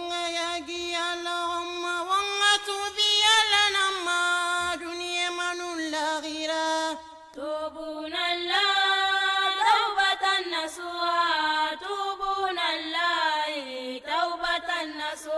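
A single voice chanting an Islamic devotional song in Soussou, holding long drawn-out notes that slide up and down in pitch, with a short breath break about seven seconds in.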